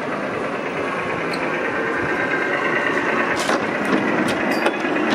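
Small miniature-railway locomotive running along the track past the listener with a steady mechanical running noise, and a few sharp clicks over the second half.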